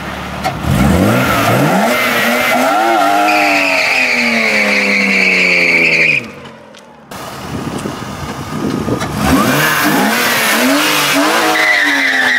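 BMW E36 M3's straight-six revving hard in a burnout attempt, with the sticky Bridgestone RE-71R tires squealing in a steady high tone. The sound breaks off about six seconds in, then the engine revs up again and the squeal comes back near the end.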